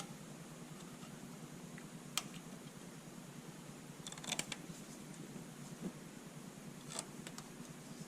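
A few faint, sharp metallic clicks from hand tools on the stator bolts: one about two seconds in, a quick cluster around the middle, and another near the end.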